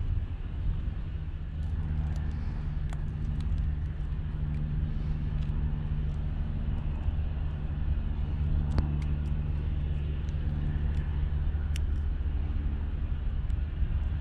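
Steady low industrial hum of factory machinery, a drone made of several held low pitches, with a few faint clicks over it.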